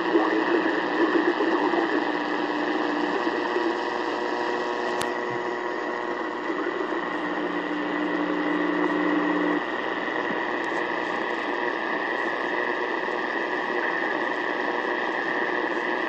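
AM radio tuned to 1560 kHz giving out static hiss with a steady high whistle. A lower hum in the static stops about ten seconds in, and there is a single click about five seconds in.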